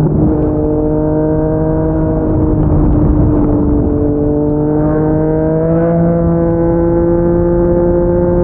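Yamaha MT-09's inline-three engine through a Yoshimura R55 slip-on exhaust, heard from the rider's seat on the move over wind noise. The engine note holds and sags slightly, then climbs about halfway through as the bike accelerates, and settles at a steady higher pitch.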